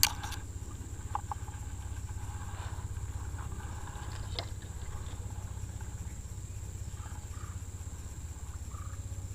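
Steady high-pitched drone of insects such as crickets or cicadas over a low, steady hum, with a few faint clicks.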